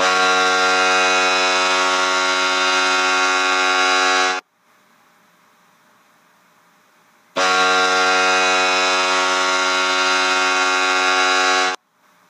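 Hockey arena goal horn sounding two long, steady, low-pitched blasts of about four seconds each, with a pause of about three seconds between them.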